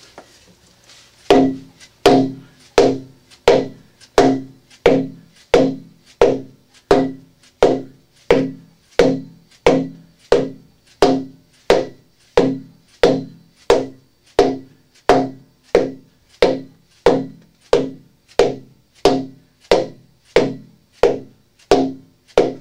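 Big hammer striking a PVC drain pipe again and again to drive it down into a rubber gasket in a cast iron hub. The blows are even, about three every two seconds, starting about a second in, each with a short pitched ring.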